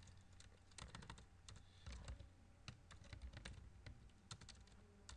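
Computer keyboard being typed on: quiet, irregular key clicks as a line of code is entered.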